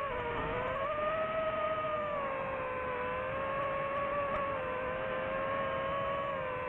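DJI FPV quadcopter's motors and propellers whining steadily. The pitch dips briefly about half a second in, rises back, and then holds with slight wavers.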